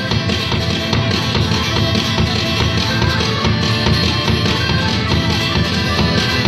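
Live acoustic band playing the instrumental opening of a song, with a steady percussive beat.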